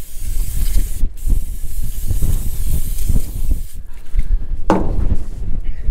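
Aerosol brake cleaner spraying onto a trailer wheel hub in long hisses to wash off old grease and debris, with a short break about a second in; the spraying stops a little under four seconds in.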